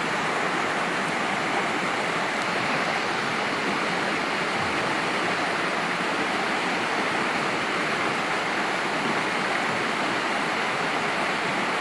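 Steady, unbroken rushing of running water.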